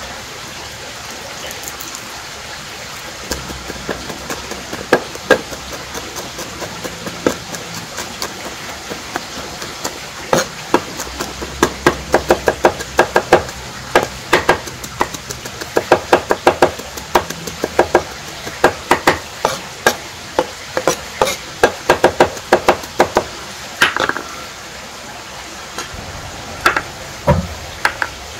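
Sharp kitchen knocks and clicks, a few scattered at first, then quick runs of several a second through the middle, over a steady background hiss.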